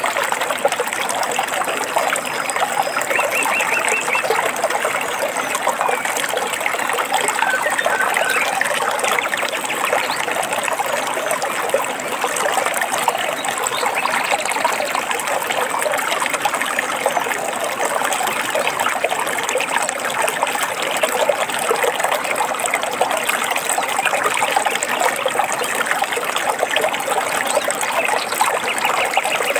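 Small stream trickling and babbling steadily over stones, with a few brief bird chirps above it.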